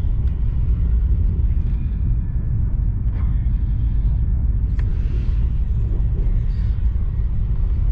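Steady low rumble of a high-speed train running at speed, heard from inside the passenger cabin. A few faint clicks and knocks sound over it, the clearest about five seconds in, as a fold-out tray table is lifted out of the seat armrest.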